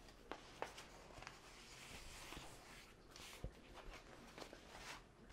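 Faint rustling and crinkling of a diamond painting canvas and its plastic protective film being handled and lifted, with a few small clicks.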